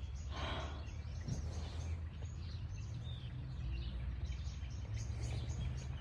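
Birds chirping and calling in bush, short high chirps repeating throughout, over a steady low rumble. A brief breathy rustle about half a second in.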